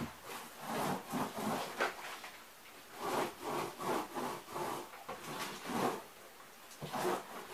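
Short bursts of rubbing and scraping as a cardboard furniture unit is brushed with paint and shifted upright on a wooden worktable.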